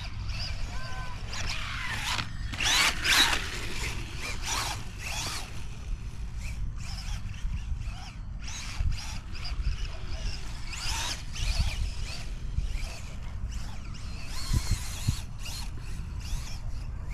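Footsteps crunching in soft sand, roughly two a second, with wind rumbling on the microphone.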